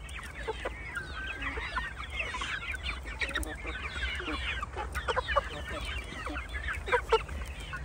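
A flock of young Shamo chickens calling: many short, high peeps and clucks overlapping, most of them falling in pitch.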